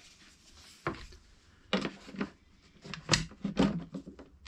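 Several short knocks and clatters of a metal hand tool being picked up and handled on a wooden workbench, the loudest a little past the middle.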